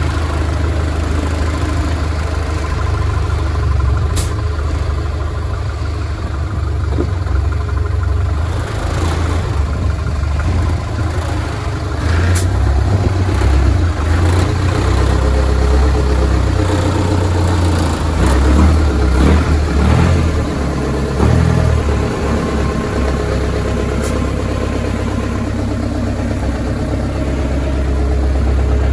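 Mercedes engine of a GAZ-63 off-road truck running at low revs as the truck crawls over concrete blocks with its axles at full flex, working harder and louder for a few seconds past the middle. A few sharp clicks sound over it.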